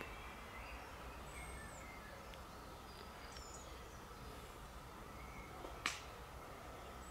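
Quiet woodland ambience with faint birdsong: short high whistles that slide down, about a second and a half in and again near the end, and a few brief chirps in between. A single sharp click sounds about six seconds in.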